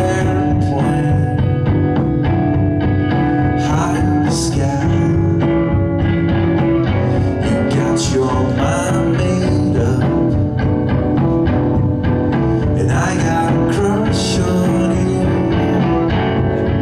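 A rock band playing live: hollow-body electric guitar, drum kit with cymbal crashes now and then, and a man singing.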